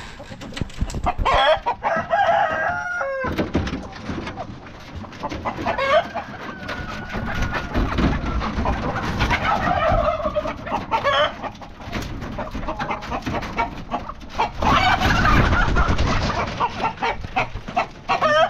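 A coop of Ayam Cemani chickens calling loudly as they are caught by hand: roosters crowing and birds clucking and squawking, with wing-flapping and scuffling between the calls.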